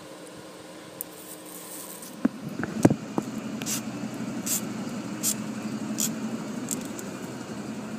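Dry raffia strands rustling as they are handled and threaded onto a needle, with a few sharp clicks around the middle and a short soft rustle about every three-quarters of a second. Under it a low motor hum swells from about three seconds in.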